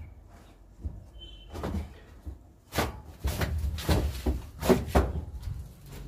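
A series of sharp knocks and rattles in quick succession between about three and five seconds in, loudest near the end, after a couple of quieter knocks earlier.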